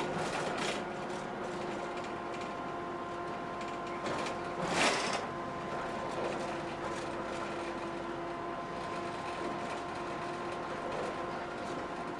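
Cabin sound of a route bus under way: a steady running drone with a few held tones from the engine and drivetrain, and light rattling of interior fittings. A brief rushing noise comes about five seconds in.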